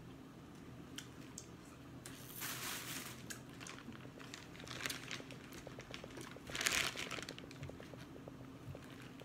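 Clear plastic seafood-boil bag crinkling as hands rummage through it, in a few rustling bursts, the loudest about two-thirds of the way in.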